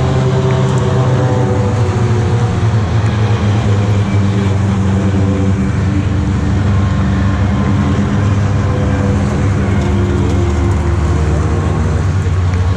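British Touring Car Championship race cars' engines heard from trackside, a steady low drone with fainter engine notes shifting over it.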